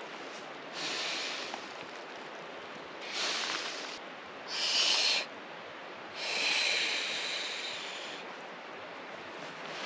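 Four breaths blown into the valve of a Klymit inflatable sleeping pad, hissy puffs with pauses between them, the last one longer, about two seconds.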